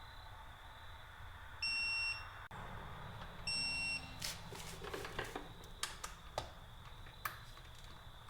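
Two electronic beeps, each about half a second long, come about a second and a half and three and a half seconds in. A scatter of sharp clicks and knocks follows through the middle.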